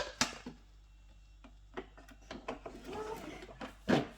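Scattered clicks and knocks of plastic parts being handled and fitted on a DeLonghi espresso machine, the loudest near the end.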